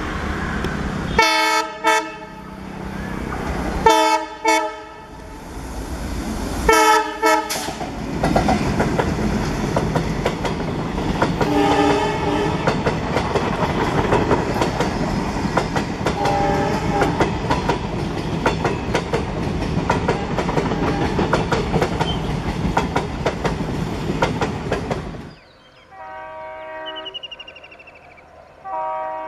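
Indian Railways WDG 3A diesel locomotive sounding its horn three times as it approaches with a passenger train. Its coaches then pass close by, wheels running with a steady clickety-clack over the rail joints, with two fainter horn notes in the middle. Near the end the sound drops suddenly to a quieter scene where a train horn sounds twice from further off.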